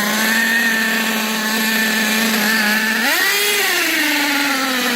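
Small nitro RC car engine running at a steady high-pitched idle, then revving up sharply about three seconds in and settling back down.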